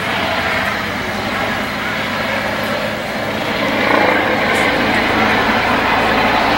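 Boat diesel engines running with a steady drone, a low hum under a constant rushing noise that grows a little louder about four seconds in.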